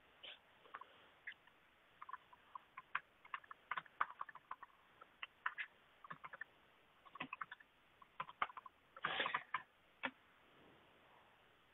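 Faint, irregular clicking and tapping of a computer keyboard and mouse, with a denser run of clicks about nine seconds in, heard over a narrow-band audio line.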